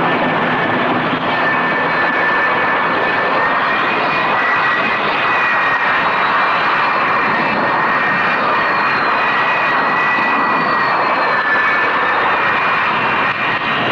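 Jet aircraft engine running at high power: a steady roar with a high whine that wavers slightly, as during catapult hookup on a carrier flight deck.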